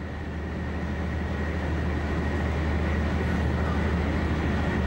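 Metropolitan express train running at speed, heard from inside the driver's cab as a steady rumble with a faint high steady tone. It grows a little louder over the first couple of seconds.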